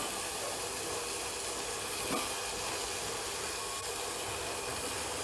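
Sliced onions frying in hot oil and butter with whole spices, a steady sizzling hiss.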